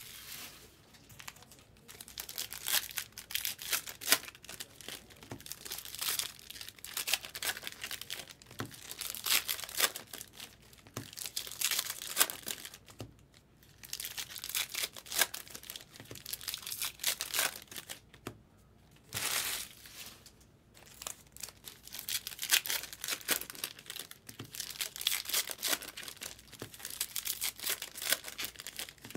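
Baseball card packs being torn open and their wrappers crinkled, in repeated bursts of crinkling and ripping, with a longer rip about nineteen seconds in.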